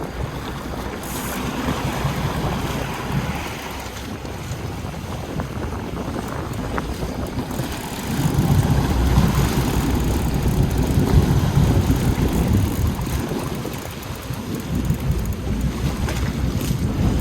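Wind buffeting the microphone over the low rumble of a fishing boat running on the open sea, with water noise; the rumble grows louder for several seconds in the middle.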